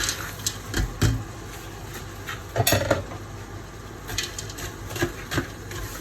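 A utensil knocking and clinking against a cooking pot as vegetables are added. The knocks are scattered and irregular, and the loudest cluster comes about two and a half seconds in.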